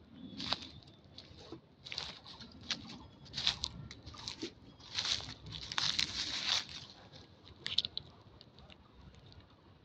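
Dry fallen leaves crackling and rustling under footsteps in irregular bunches, busiest in the middle, with one last sharp crackle about eight seconds in.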